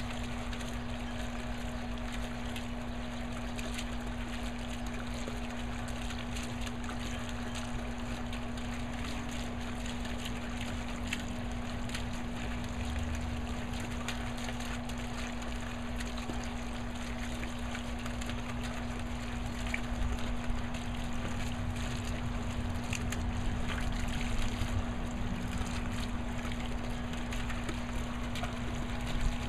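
Small rock pond fountain bubbling and splashing steadily, water spilling and trickling over the stones, with a steady low hum underneath.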